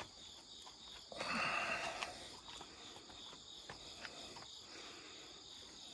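Steady high-pitched chorus of insects, with a brief rustling noise about a second in.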